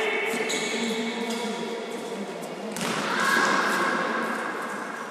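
Futsal ball being kicked and bouncing on an indoor court, with sharp knocks echoing around a large sports hall. Shouting voices run over it, with a louder knock a little after halfway followed by a long held shout.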